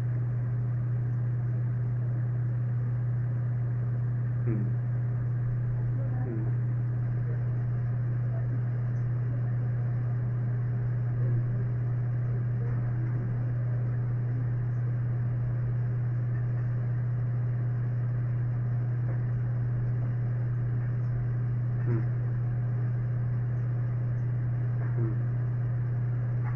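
Steady low hum, with a few faint snatches of a distant voice.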